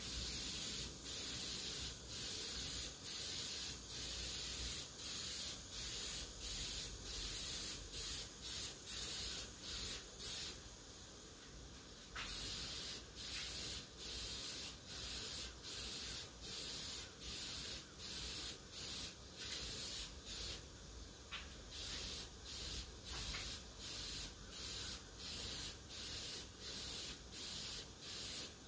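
Paint being sprayed onto a canoe hull in short, quick bursts, about one and a half a second, with two pauses of a second or so about ten and twenty seconds in.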